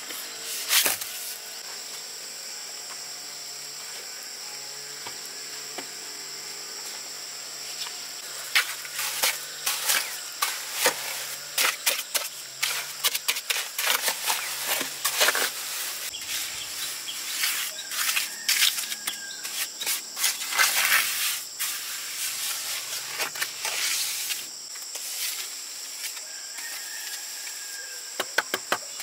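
Steady high-pitched insect chorus, with a run of irregular clicks and knocks from work by hand starting about eight seconds in and dying away near the end.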